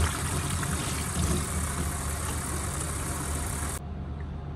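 Tap water running and splashing into a stainless-steel sink as hands are rinsed under it, cut off abruptly near the end when the tap is shut. A low steady hum continues underneath.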